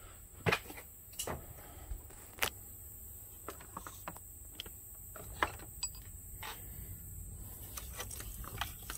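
Irregular light clicks and knocks, about a dozen, of hoses and parts being handled and moved aside in a truck's engine bay, over a faint low rumble.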